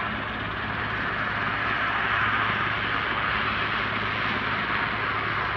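Helicopter heard at a distance: a steady rushing drone with a low hum beneath it, swelling slightly about two seconds in.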